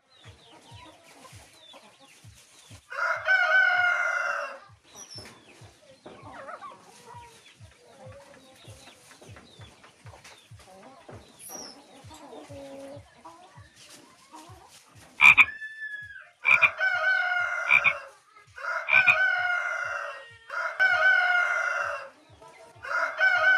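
Roosters crowing: one long crow a few seconds in, then a rapid run of four or five crows in the last eight seconds. Faint low pulses, about three a second, tick underneath throughout.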